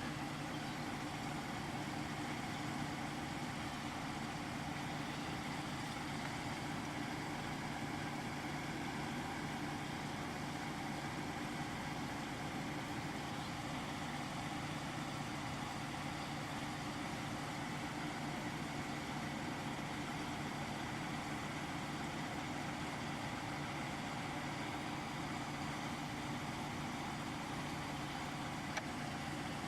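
An engine idling steadily, a constant drone that holds the same pitch throughout.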